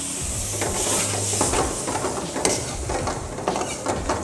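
Vegetables in masala gravy sizzling in a steel kadhai over a gas flame. A long-handled steel ladle stirs and scrapes the pan, giving several sharp metal clinks.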